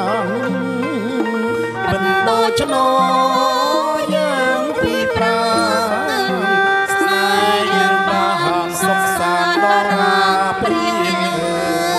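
Traditional Khmer wedding music (phleng kar): a woman singing a melismatic, wavering melody into a microphone over the live traditional ensemble, which plays on without a break.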